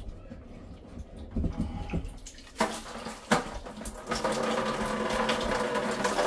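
Two sharp knocks as the whole-house filter's plastic sump comes loose, then from about four seconds in a steady splash of water pouring out of the housing as the first-stage filter is drained.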